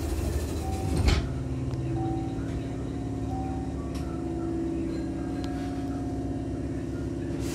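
Hankyu train's double sliding passenger doors finishing their close and shutting with a sharp thump about a second in, followed by the train car's steady hum.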